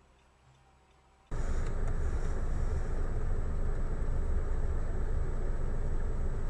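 Faint at first, then about a second in, a steady rumble of a moving car's road and engine noise, heard from inside the cabin.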